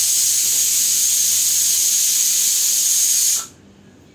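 Pressure cooker whistle blowing: a loud, steady hiss of escaping steam with a high whistling tone, cutting off suddenly about three and a half seconds in.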